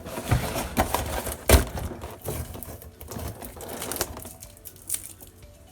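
Packaging tape and packaging being crumpled and handled: crinkling with several sharp knocks, the loudest about a second and a half in.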